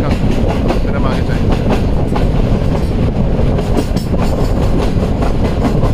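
Passenger coach of a moving express train, heard from beside the coach's side: a loud, steady running rumble with a continual clatter of wheels over the rails.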